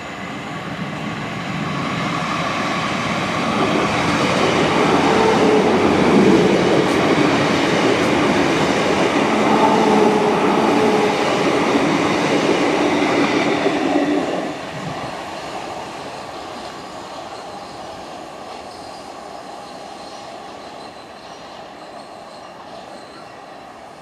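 An electric multiple unit train passing: the rumble of wheels on rail with a steady hum over it builds up over a few seconds, stays loud, then drops off suddenly about two-thirds of the way through and fades away.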